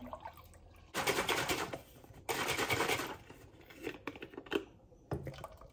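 White vinegar pouring into a glass measuring cup in two spells of about a second each with a short break between, followed by a few light clicks and knocks.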